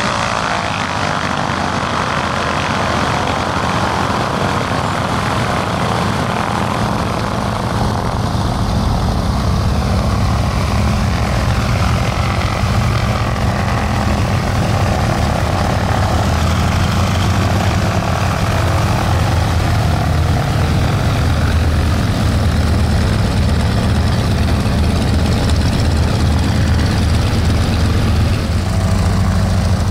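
Pratt & Whitney radial piston aircraft engines running steadily with their propellers, a deep, continuous engine sound that grows a little louder several seconds in.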